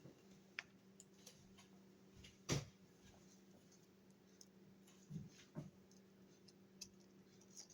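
Near silence with a faint steady hum, broken by a few scattered clicks and knocks from handling the plastic case and packaging of a cordless impact wrench; the loudest knock comes about two and a half seconds in.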